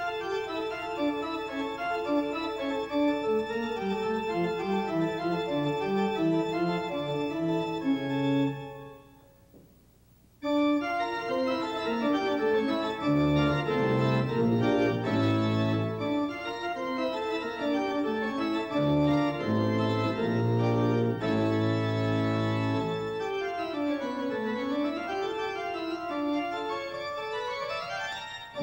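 Pipe organ playing a fast piece in several lines at once. It fades out for about two seconds a third of the way in, then comes back suddenly with deep bass notes under it. Near the end, a run of notes falls and then climbs again.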